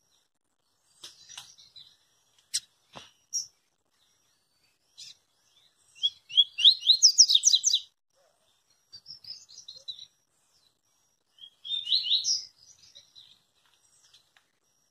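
Papa-capim seedeater singing in its cage: scattered chirps with a few sharp clicks at first, then about six seconds in a loud fast run of rising notes, followed by two shorter phrases.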